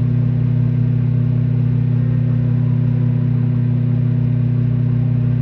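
Microwave oven running on high with a steady, loud mains hum.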